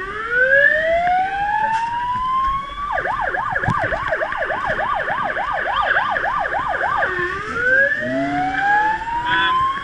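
Fire truck siren heard from inside the cab: a slowly rising wail, then a fast yelp about three times a second from about three seconds in, then back to a rising wail near the end.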